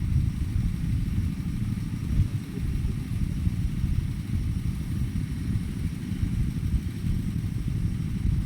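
Diesel tractor engine running steadily with a low rumble.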